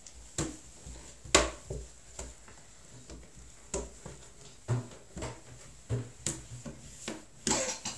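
Irregular footsteps and light knocks on a staircase, with a sharper knock about a second in and several more scattered through.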